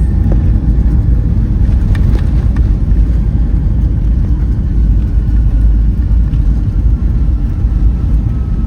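Loud, steady low rumble inside the cabin of a Boeing 757-200 on the ground at Baltimore, from its engines and airframe.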